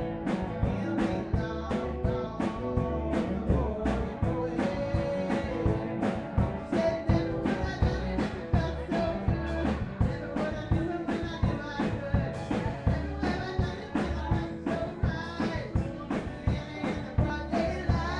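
Live band playing a rock-and-roll number: a drum kit keeps a steady beat under acoustic and electric guitars.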